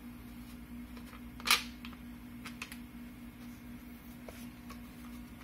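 A part of an IWI X95 rifle clicks sharply once as it is handled, about a second and a half in, followed by a few faint clicks, over a steady low hum.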